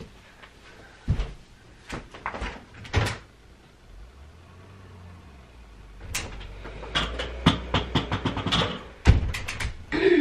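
Footsteps, knocks and a door as someone moves about the house, with a low steady rumble through the middle and a dense run of clicks near the end.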